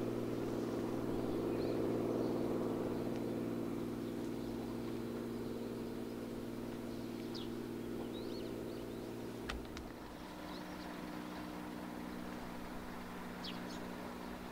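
Beechcraft A36 Bonanza's six-cylinder piston engine and propeller droning steadily in flight, slowly fading; about ten seconds in the drone changes to a different, lower steady tone. Birds chirp a few times.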